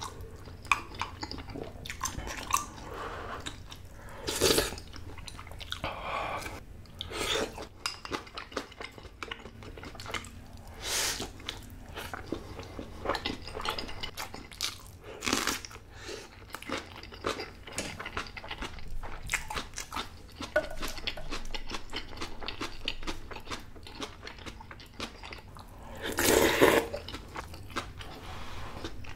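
A person chewing and biting food close to the microphone, with irregular crunching and crackling over a steady low hum.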